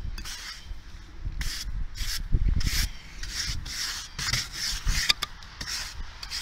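Car snow brush sweeping loose, fluffy snow off a car's window in repeated swishing strokes, about two a second.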